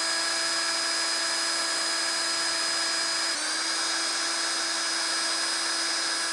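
AEG cordless drill running at steady speed, boring a screw hole into a fibreglass boat transom through the gel coat, with a continuous whine. Its pitch dips slightly about three seconds in.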